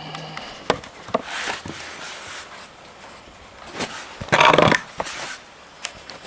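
Hand tools working on a scooter engine during disassembly: metal clicks and knocks, then a short, loud rasping burst about four and a half seconds in.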